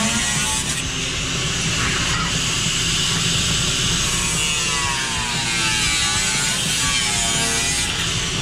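Angle grinder with a thin cut-off wheel cutting through 18-gauge sheet steel, a steady high grinding hiss whose pitch sags and recovers as the wheel is loaded in the cut.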